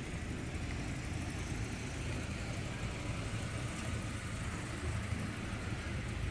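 Steady outdoor street ambience: a low rumble of traffic and idling car engines, with no distinct events standing out.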